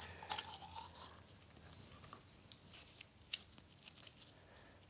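Faint crackling and squishing as a sparkly toy putty is squeezed and kneaded in the hands, with a few light clicks of small plastic tubs being handled.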